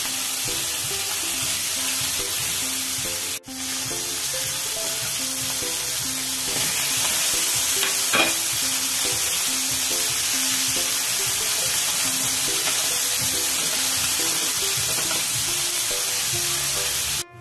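Chicken pieces, garlic and onion sizzling steadily as they fry in hot oil in a pan, under light background music. The sound drops out briefly a little over three seconds in.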